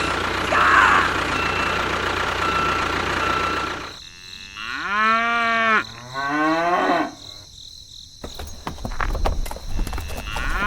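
A small engine runs steadily, then cuts off about four seconds in. A cow moos twice, each moo rising and then held, followed by scattered clicks and taps.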